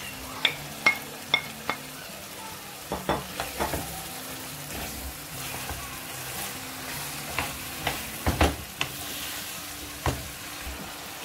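A wooden spoon stirs chickpea curry frying in a pan, over a steady sizzle. The spoon knocks irregularly against the pan, in clusters about three seconds in and again around eight seconds in.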